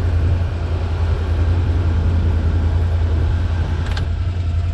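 Can-Am Defender engine idling as it warms up, with the cab heater's blower fan pushing air through the dash vents. About four seconds in the heater control is turned with a click and the fan's rushing drops.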